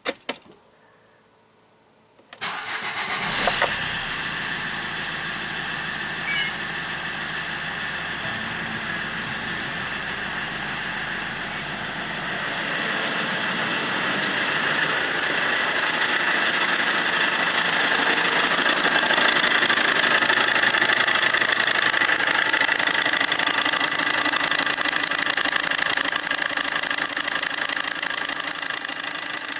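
Opel Corsa D 1.3 CDTI diesel engine cranked and started about two seconds in, then idling with a steady, high-pitched, wavering squeal. The owner suspects the auxiliary drive belt (V-belt) or its tensioner pulley.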